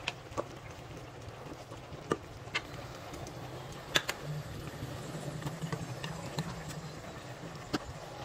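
Wooden spatula stirring a pot of vegetable soup, with a few sharp knocks against the pot's metal side, over a steady low hum.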